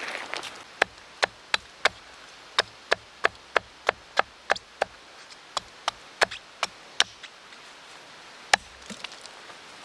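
A quick run of sharp knocks, about three a second with short breaks, then a single harder knock near the end: something being struck repeatedly, as in hammering or chopping.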